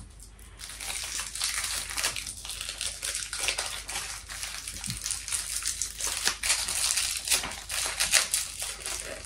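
Crinkling and crackling of a thin plastic straw wrapper being torn open along its perforation and worked off the straw, a quick irregular run of small crackles.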